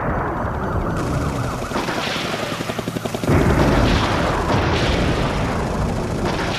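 Military helicopter rotor and turbine noise, a fast steady blade chop under a dense roar. It changes abruptly about one second in and again about three seconds in as the shots change.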